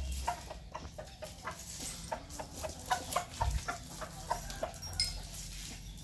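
Chickens clucking: a run of short, repeated clucks, about three a second, that stops a little over a second before the end.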